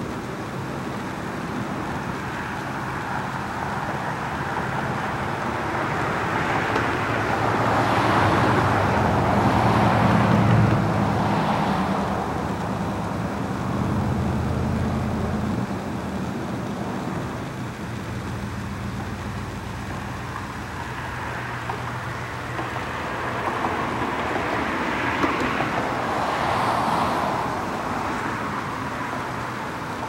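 Steady rush of passing motor vehicles. It swells loudest about a third of the way in, with a low engine hum, and swells again near the end.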